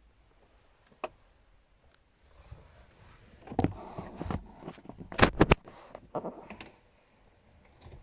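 Handling noise as a camera is moved and set in place inside a car cabin: one sharp click about a second in, then about three seconds of knocks, taps and rustles.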